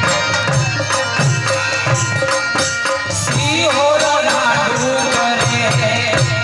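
Gujarati folk devotional garba music: a harmonium holding steady chords over a regular drum beat and rattling percussion. A little past halfway, a wavering, ornamented melody line joins.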